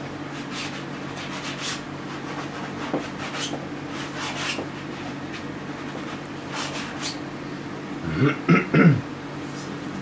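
A few short, scratchy strokes of paint being worked onto a canvas over a steady low room hum. A brief murmur of voice comes about eight seconds in.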